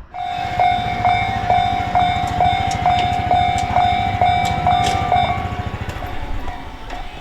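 Japanese railway level-crossing warning bell ringing its "kan-kan" alarm, about two strokes a second, over the low rumble of a passing train. The bell grows fainter over the last couple of seconds.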